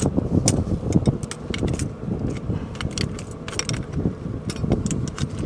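Irregular metallic clinks and rattles of a combine corn head's gathering chain and a hand tool, as the chain is pried back onto its sprocket.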